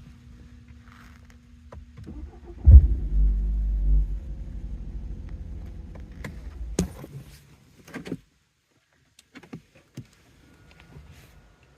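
BMW 530i (2017, two-litre turbocharged four-cylinder) cold start: the engine catches with a loud knock, runs with a heavy low rumble for a second or two that then settles, and another sharp knock comes about four seconds later before the sound drops away to a few faint clicks. This is the cold-start knock that persists after both engine mounts and the gearbox mount were replaced.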